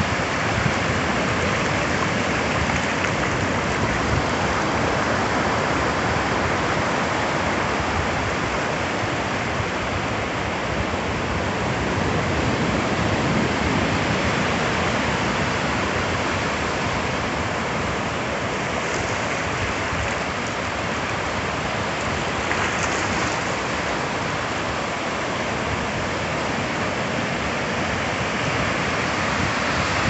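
Ocean surf breaking and washing up a flat sandy beach: a steady rush of white water that swells and eases only slightly.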